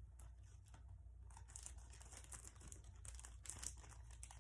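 Faint crinkling and tearing of small packaging being pulled open by hand, in irregular small rustles that grow busier after about a second and a half.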